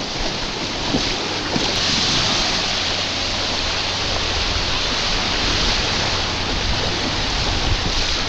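Ocean surf washing and rushing steadily in shallow water.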